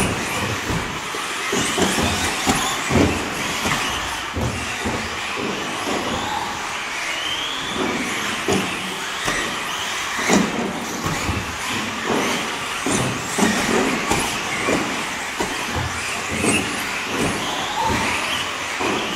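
Several electric 1/10 RC off-road buggies running on a carpet track: brushless motors whining up and down in pitch with the throttle over a continuous hiss of tyres on carpet, with frequent irregular thumps from landings and knocks.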